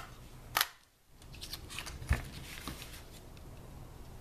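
Handheld paper tag punch snapping shut through cardstock about half a second in, followed by light paper rustling and small taps on the table.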